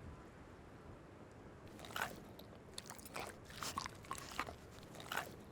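Red fox chewing a fish: a run of crunching, wet bites starting about two seconds in.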